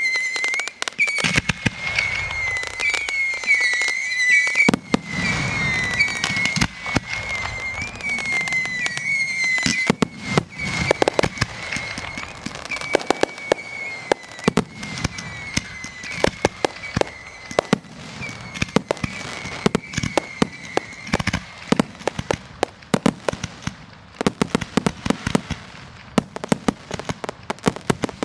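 Fireworks going off: dense crackling and popping, with a warbling whistle from whistling shells that stops about 21 seconds in. Deep booms come about a second in and again about five seconds in.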